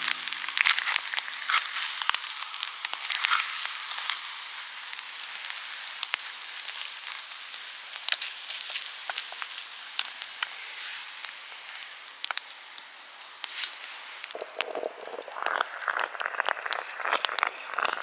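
Vegetarian white pudding frying in a pan over an open wood fire: a steady sizzle dotted with sharp crackling pops. For the last few seconds a coarser, lower crackle joins in.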